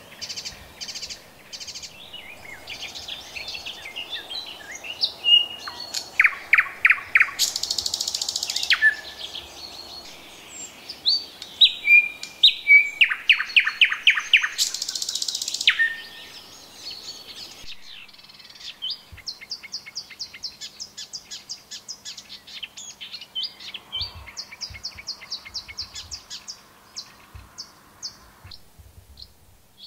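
Thrush nightingale singing: loud runs of fast repeated notes, each phrase ending in a harsh, dry rattle, twice in the first half. Other small birds sing around it, and after a cut there are quieter runs of rapid high notes.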